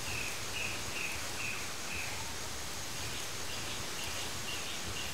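Tropical rainforest ambience: a steady background hiss with a run of short high calls from an unseen small animal, repeated about twice a second, fading after a couple of seconds and starting again past the middle.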